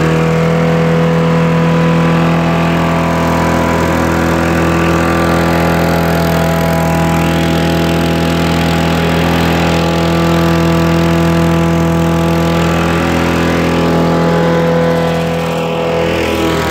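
Modified push lawnmower's small engine running steadily at a held speed, with a brief dip in speed near the end.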